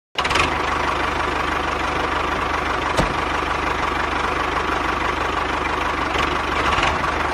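Tractor engine running steadily at idle with a fast, even knock. It starts abruptly just after the opening, and there is one short click about three seconds in.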